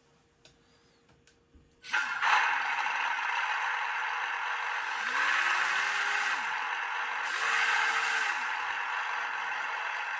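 Orlandoo Hunter petrol micro sound unit playing a simulated gasoline engine through its tiny speaker. It starts suddenly about two seconds in, runs at a steady idle, and revs twice as the throttle is applied, with a faint whine rising and falling under each rev.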